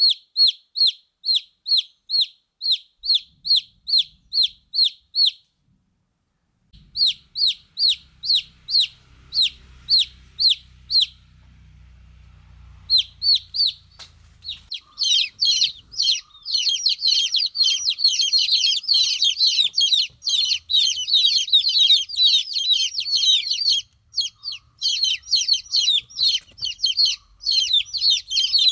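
Baby chicks peeping: at first a single chick's evenly spaced peeps, each a short falling note, about two to three a second, with a short break. From about halfway in, many chicks peep at once in a dense, continuous chorus.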